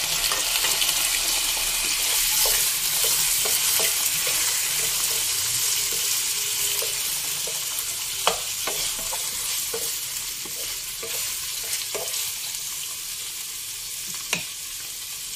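Raw chicken wings sizzling in hot oil in a non-stick wok, just added to fried onion and garlic. A wooden spoon knocks against the pan a few times as they are stirred, and the sizzle is loudest at first and eases off gradually.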